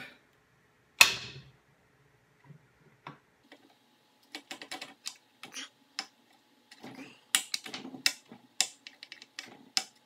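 Sharp metallic clicks and light taps as a strong rare-earth magnet is handled and set against the steel muzzle of an AR-15. There is one loud click about a second in, then an irregular run of light clicks, sharper and more frequent in the last three seconds.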